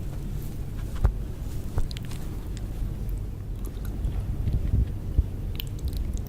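Cake being bitten and chewed close to the microphone: soft, moist mouth sounds with scattered short clicks, the sharpest about a second in, near two seconds and about five seconds in.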